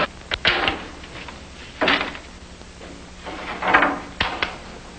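Hand-tool woodworking at a workbench: a few sharp knocks, two short scraping strokes and two more knocks near the end.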